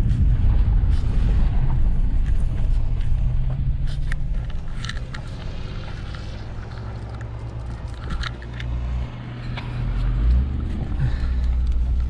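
Car driving on a road, heard from inside the cabin: a steady low rumble of engine and tyres, quieter for a few seconds in the middle and louder again near the end, with a few light clicks.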